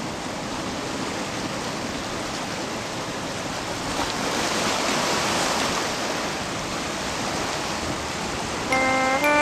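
Ocean surf washing steadily, swelling louder as a wave breaks about four to six seconds in. Near the end, music starts with a few stepping notes over it.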